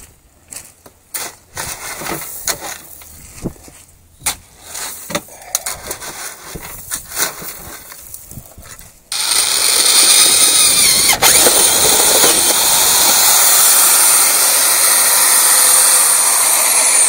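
Shovel scooping and scraping gravelly soil around a plastic sump basin, irregular scrapes and knocks. About nine seconds in, a loud steady noise starts abruptly and continues, louder than the digging.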